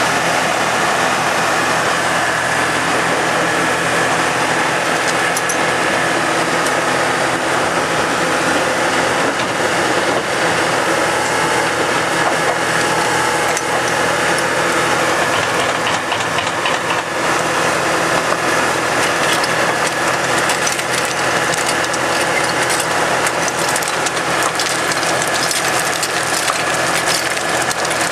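Caterpillar 953 track loader's diesel engine running steadily. In the last several seconds riprap stones clatter as they slide out of the tipped bucket.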